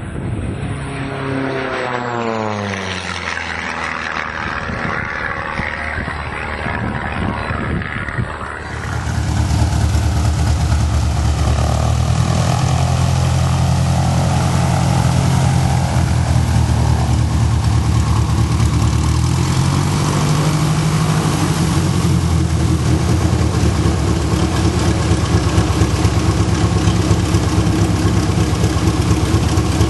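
Lancair 360 homebuilt racing plane making a fast pass, its propeller and piston engine dropping steeply in pitch as it goes by. About nine seconds in, the plane's engine runs steadily on the ground at a low, even speed.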